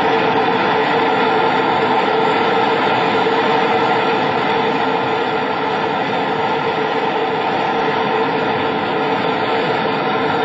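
Fireworks factory blaze, a mass of fireworks burning and going off at once, heard as a loud, steady roar with no single bang standing out.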